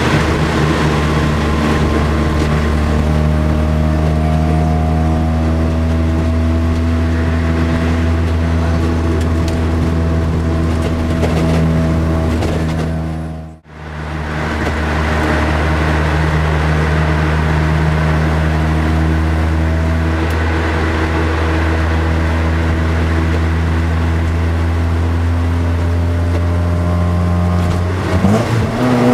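Mazda RX-7 FD's single-turbo 13B rotary engine heard from inside the cabin, running steadily at constant cruising revs. The sound dips out briefly about halfway through, and near the end the pitch starts to climb as the car accelerates.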